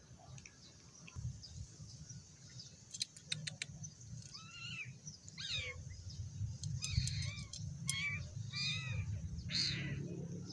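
Small birds chirping in a run of short, arched high calls, repeated several times from about four seconds in, with a few sharp clicks and a low background rumble.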